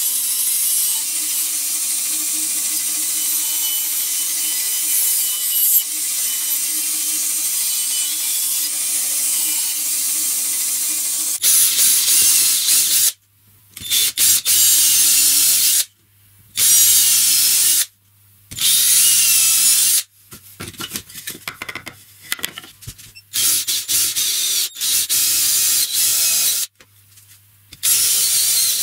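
Band saw running and cutting through a wooden board for about the first eleven seconds. Then an electric drill with a long wood bit bores holes through wooden boards, running in bursts of a second or two with sharp stops between them, choppier in the second half.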